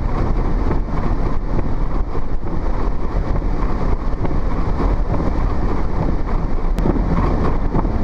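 Strong blizzard wind rushing and buffeting around a moving vehicle, with the vehicle's road and engine noise underneath: a loud, steady, rumbling rush.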